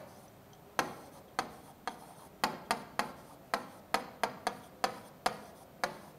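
Marker pen tapping and ticking against a writing board as words are written by hand, about a dozen sharp clicks at an uneven pace.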